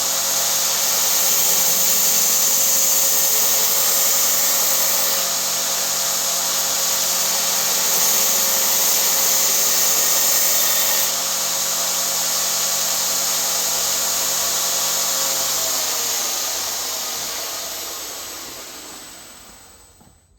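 Horizontal 50x2000mm belt grinder running, its abrasive belt grinding fullers into a steel blade with a loud hiss that shifts in strength a few times. About two-thirds of the way in the motor hum drops in pitch and the belt winds down, the sound fading away near the end.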